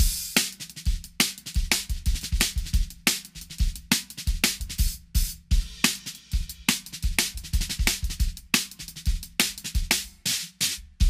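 Drum kit groove on a Sonor AQ2 14x6 maple snare drum turned upside down: the sticks strike the thin resonant head right on the snare wires, giving a very short, precise crack with the wires in it. Bass drum thumps run among the quick snare strokes.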